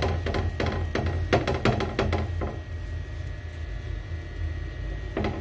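Hands patting and pressing a raw paratha down on a tawa griddle: a quick run of soft taps in the first two and a half seconds, then quieter handling, over a steady low hum.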